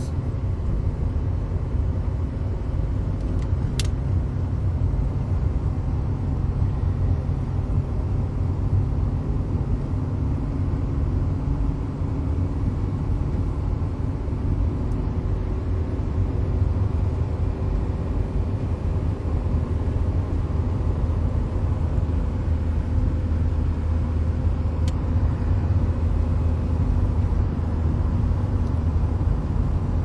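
Car driving at a steady speed, heard from inside the cabin: a steady low rumble of engine and road noise with a faint hum, and a couple of faint clicks.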